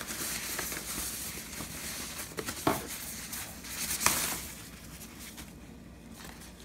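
Crinkling and rustling of the white wrapping around a set of FPV goggles as they are lifted out of their cardboard box, with a couple of louder crackles about three and four seconds in. It dies down to quiet handling near the end.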